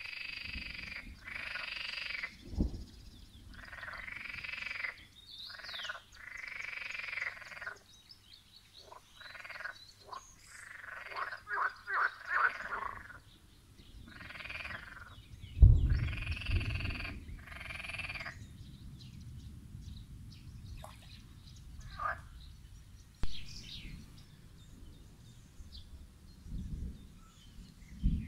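Frogs croaking in a pond: a run of loud calls, each about half a second to a second long, some in quick rattling trains. They thin out over the last third. A low thump and rumble comes about halfway through.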